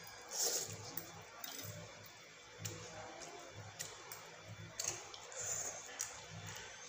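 People slurping and chewing noodles in soup, with small clicks of metal forks on plates. The loudest slurps come about half a second in and again around five seconds in.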